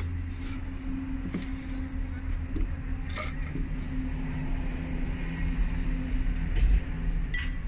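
A vehicle engine running steadily at idle, a low rumble with a steady hum, with a few short clicks and a dull thump near the end.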